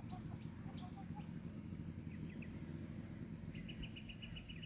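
Faint soft clucking from a small flock of Australorp hens over a steady low rumble; near the end a small bird gives a quick run of high chirps, about eight a second.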